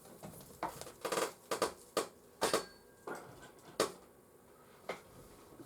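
A run of sharp clicks and knocks of hard objects being handled on a workbench, about eight in quick, irregular succession over three seconds and one more about five seconds in.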